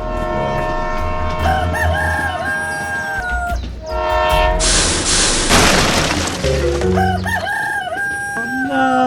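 Background music with two long, wavering pitched calls like a rooster crowing, and a loud burst of noise in the middle, about five seconds in.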